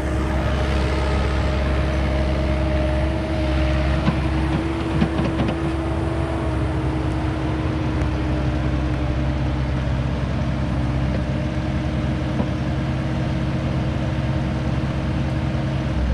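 Diesel engine of a Caterpillar mini excavator idling with a steady hum, with a few light clicks about four to five seconds in.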